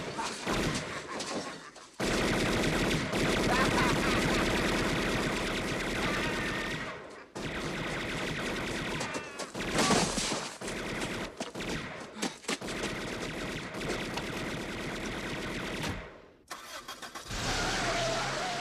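Film soundtrack of rapid Tommy gun fire, mixed with a man's cries. Near the end a car engine revs as its wheel spins on icy snow.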